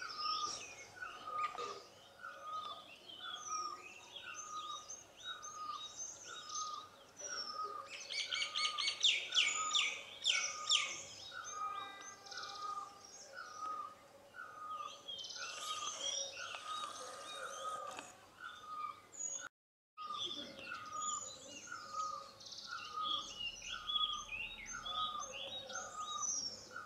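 Outdoor birdsong: one bird repeats the same short note a little over once a second while other birds chirp over it. About eight seconds in there is a louder burst of rapid chirps lasting a few seconds.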